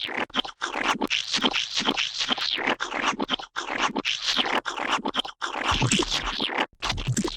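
Gooey, slimy splat and squish sound effects strung together in quick succession, many short wet bursts with abrupt cuts between them.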